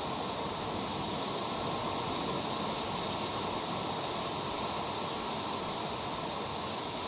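Steady, even rushing noise with no distinct calls, sneezes or other events.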